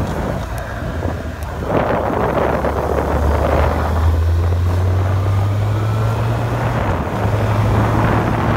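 Car engine and exhaust droning low as the car drives along, with wind buffeting the microphone. The engine note creeps up in pitch and drops back about two-thirds of the way through.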